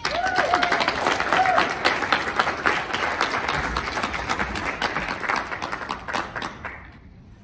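Audience applauding in a hall. The claps die away about seven seconds in.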